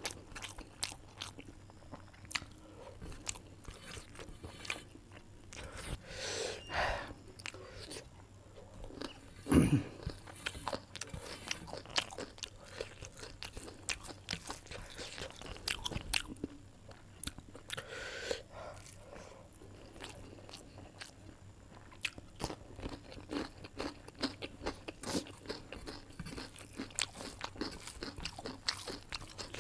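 Close-up mouth sounds of a person eating: steady chewing and crunching with many small clicks. There is a single louder thump about ten seconds in.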